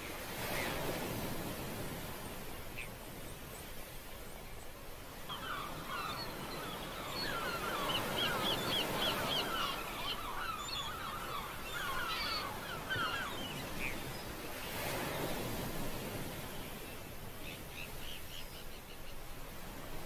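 Steady ocean surf washing around the pier, with a bird giving a rapid series of short chirping calls for several seconds in the middle and again briefly near the end.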